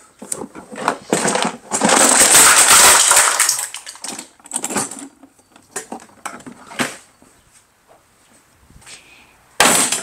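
Loose broken plastic rattling and clattering in a drop-damaged Masterforce rolling toolbox as it is lifted and tilted. A loud clatter lasting over a second comes about two seconds in, followed by scattered knocks and rattles and a sharp knock at the very end.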